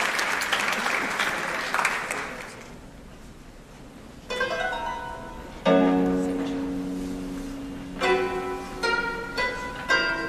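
Audience applause dying away over the first two or three seconds, then after a short hush a plucked string instrument begins: single notes ringing out with a long decay, a strong low note about halfway through and a few more notes near the end.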